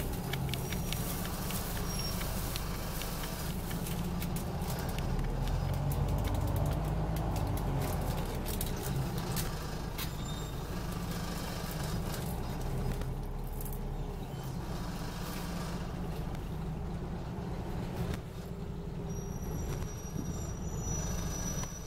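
Onboard sound of a Scania OmniCity N94UD double-decker bus under way: the five-cylinder diesel engine drones steadily, its pitch gliding up and down, and the interior rattles and clicks. A thin high whine comes in near the end.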